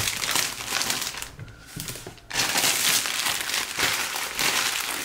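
Plastic wrapping crinkling and rustling as it is handled and pulled off, dropping off for about a second midway and then louder again.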